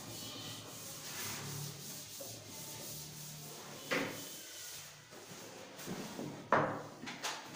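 Chalkboard eraser rubbing back and forth across a blackboard, wiping it clean, then two sharp knocks, the second louder, near the end.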